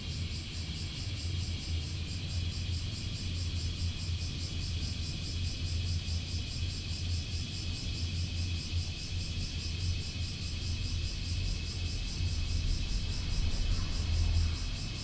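Honda Grom 125's small single-cylinder engine running at a steady speed, with a constant low hum and rumble.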